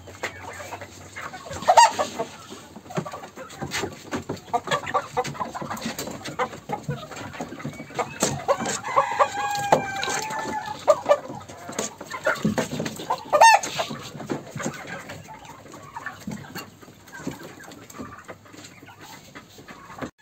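Domestic chickens clucking and calling in their coop, a rooster among them, with a couple of loud sharp squawks and one longer drawn-out call in the middle.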